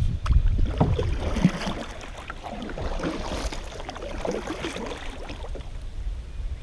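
Wind buffeting the microphone with a heavy rumble for about the first second and a half, then easing, leaving water lapping and splashing against the kayak hull.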